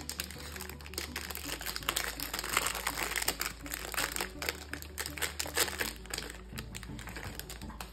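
Plastic wrapper of a Panini Prestige trading-card pack crinkling and crackling continuously as it is torn open and pulled apart by hand.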